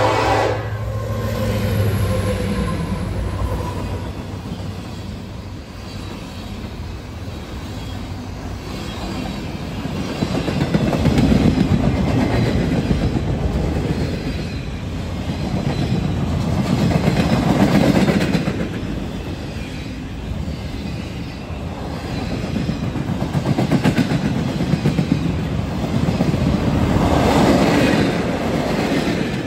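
Union Pacific freight train passing close by. The horn cuts off in the first moment and the diesel locomotives rumble past. Then long flatcars loaded with wind-turbine blades roll by with the clickety-clack of wheels on rail, swelling every six seconds or so as each car's wheel sets go past.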